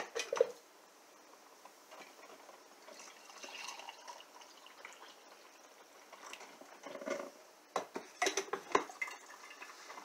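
Glass coffee-maker carafe pulled from a drip coffee machine with a clatter, hot coffee poured from it into a ceramic mug, then the carafe set back into the machine with a run of clinks and knocks near the end.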